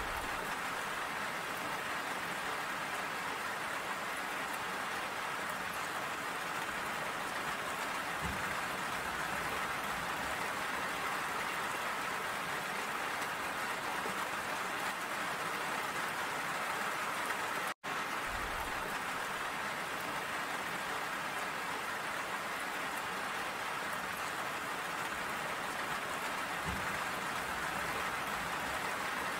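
Steady rain falling, an even hiss of drops that cuts out for an instant about two-thirds of the way through.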